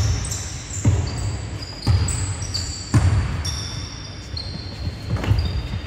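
A basketball being dribbled on a hardwood court, bouncing about once a second and then more irregularly near the end, with short high squeaks of sneakers on the floor.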